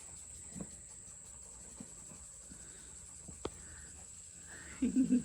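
Faint scuffling and a few soft knocks of a dog at play with a toy, with one sharp click about three and a half seconds in, then near the end a short, wavering low-pitched sound that grows louder.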